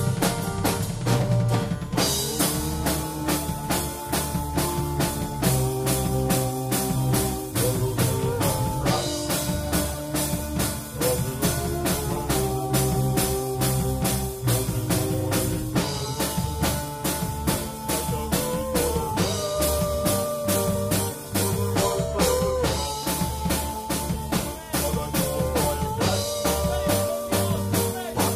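A live band playing dark folk music: a drum kit keeps a steady, driving beat under strummed acoustic guitar and sustained melodic lines that change every couple of seconds.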